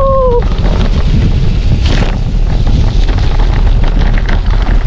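Wind buffeting the microphone over a steady rumble and dense rattling from a mountain bike riding a rough off-road trail. A short tone sounds right at the start.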